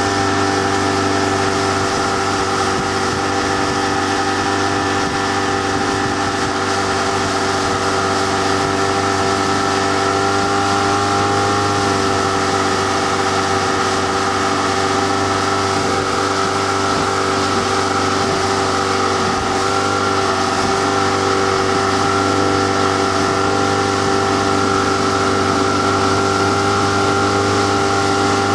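Motorboat engine running steadily at speed while towing, a constant drone with the rush of the churning wake water beneath it.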